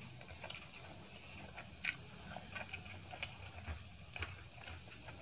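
Close-up eating sounds: soft chewing and scattered small clicks as fingers pick food off a stainless steel plate, with one sharper click about two seconds in, over a faint low hum.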